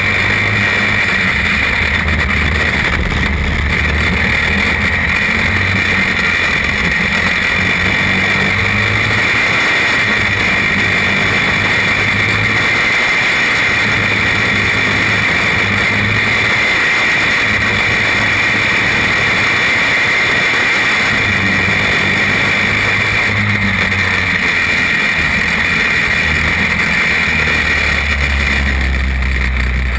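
Champ kart's small engine running hard from onboard, a steady high-pitched whine over an engine note that rises and falls as the kart speeds up and slows through the corners.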